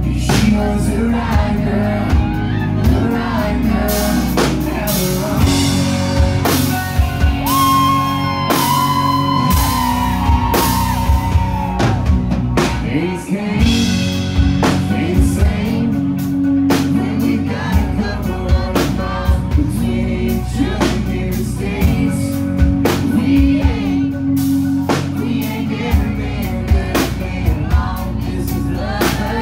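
A live country band playing: a male lead singer over electric guitar and a drum kit keeping a steady beat.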